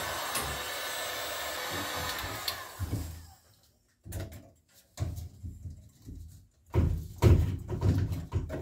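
Electric heat gun blowing steadily while softening plastic pipe so it will fit over a fitting, switched off about three seconds in and winding down. Then scattered knocks, and louder thumps and scrapes near the end as the pipe is handled at the pump fitting.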